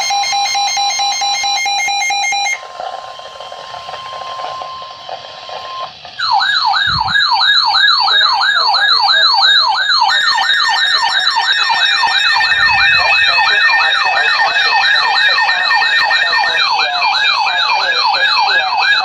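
Emergency Alert System alert tones for a severe thunderstorm warning: a steady two-note tone at first, then a quieter single steady tone. From about six seconds in, a loud, fast warbling tone sweeps up and down about three to four times a second, with a steady higher tone joining it at about ten seconds.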